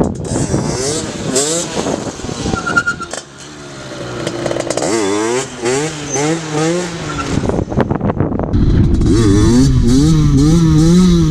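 Derbi Senda's two-stroke engine, bored out to 77cc, revving up and down in quick, repeated rises and falls as the throttle is worked back and forth. It drops off briefly about three seconds in and is louder over the last few seconds, with a low rumble under it.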